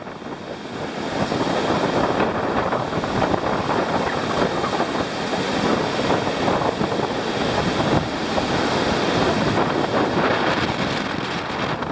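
Wind rushing over the microphone, a steady loud noise that swells about a second in.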